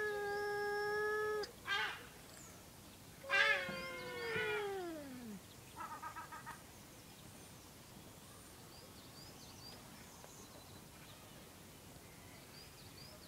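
Domestic cats yowling: a long call held at one pitch, a short call, then a loud drawn-out yowl that slides steadily down in pitch, and a quick stuttering call about six seconds in. Little is heard after that.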